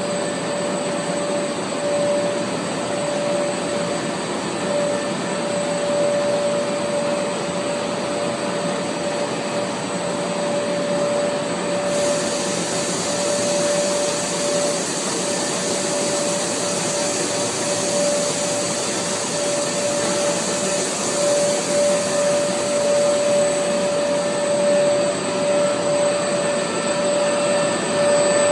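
Extrusion coating and laminating line running: a steady whirring machine noise with a constant mid-pitched whine. A higher hiss comes in abruptly about halfway through and holds.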